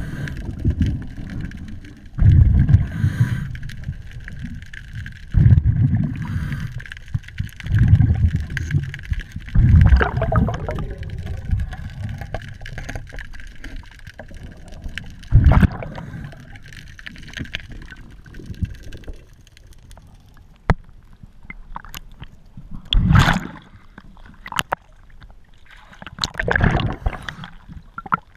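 Underwater: a diver's exhaled breath bubbling out of the regulator in low rumbling bursts every two to three seconds. Near the end come a few sharp splashes as the camera breaks the surface.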